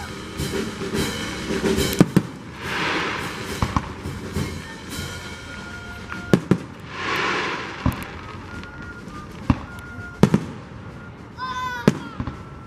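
Aerial fireworks going off: about ten sharp bangs, a second or two apart and some in quick pairs, with hissing between them.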